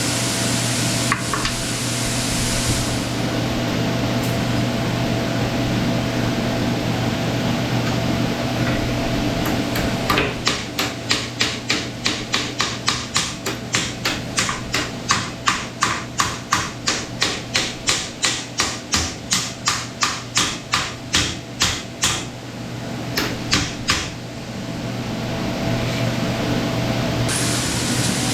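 A long run of rapid, even hammer blows, about two or three a second, over a steady machine hum, with a few more blows after a short break.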